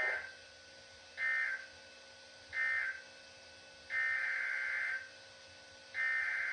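EAS/SAME header data bursts, a buzzy two-tone digital warble: three short bursts a little over a second apart, then two longer bursts of about a second each. This is the coded header opening an Emergency Alert System broadcast of a River Flood Warning.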